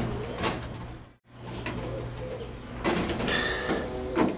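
Screwdriver tightening a metal clamp around a flexible aluminium duct, with a few sharp clicks of metal on metal. A short cooing call sounds about three seconds in.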